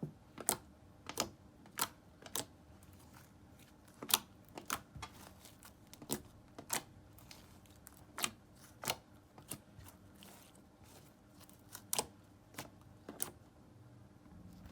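Clear slime being played with by hand, giving off irregular sharp pops and clicks, one or two a second, as trapped air bubbles burst.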